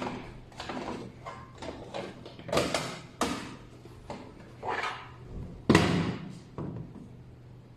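Handling noise from an NVR unit and hard drive being worked on: a run of about eight short knocks and scrapes, like a metal case cover or drive tray sliding and seating, the loudest about three-quarters through.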